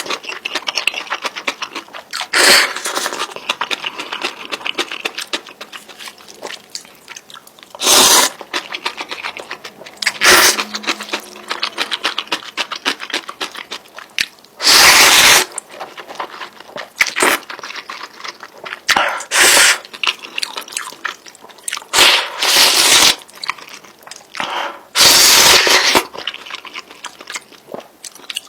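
Close-miked chewing of spicy instant noodles: many small wet mouth clicks and smacks, broken every few seconds by a loud short rush of noise, about nine in all.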